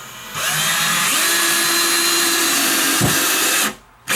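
Cordless drill-driver running steadily for about three seconds, driving a coarse drywall screw through the cabinet back into a wall stud, then stopping suddenly.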